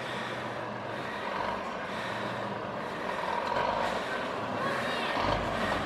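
Fire engine approaching on an emergency run, its siren sounding over the truck's engine noise; it grows louder from about halfway through.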